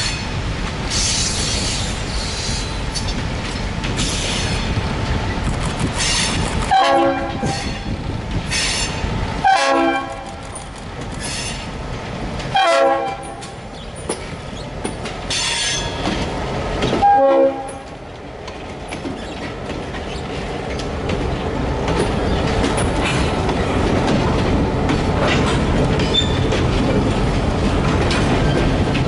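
Freight locomotive air horn sounding four separate blasts over the rumble of the approaching Kankakee, Beaverville & Southern diesel locomotives. After the last blast the locomotives pass, and a string of open-top hopper cars rolls by, wheels clacking over the rail joints, growing louder toward the end.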